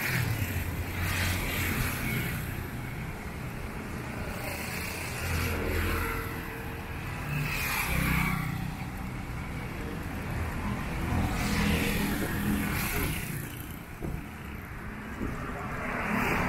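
Street traffic: motorbikes and cars passing one after another on a wide road, each engine growing louder and fading as it goes by, about five passes in all.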